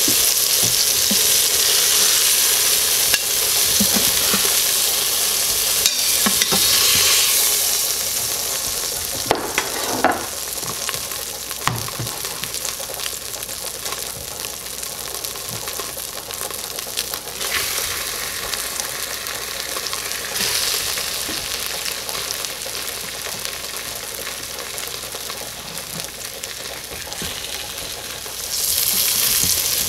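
Oil sizzling in an Instant Pot's stainless inner pot on the sauté setting as flour-dredged round steak browns. The sizzle eases off through the middle once the browned pieces are lifted out, with a few sharp clicks early on, then rises loudly near the end as fresh floured steaks go into the hot oil.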